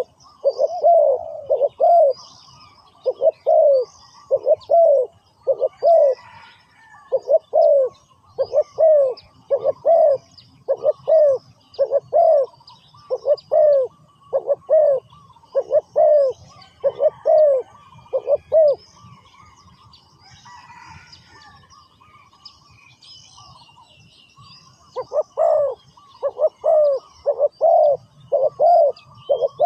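Spotted dove cooing, a long run of evenly repeated low coos that breaks off about 19 seconds in and starts again about 25 seconds in. Small birds chirp faintly in the background.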